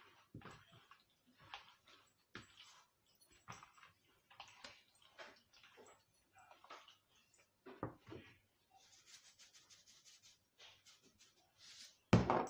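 Raw chicken pieces being rubbed and turned by hand in a flour coating on a metal plate: irregular soft handling noises, a knock about eight seconds in and a louder thump near the end.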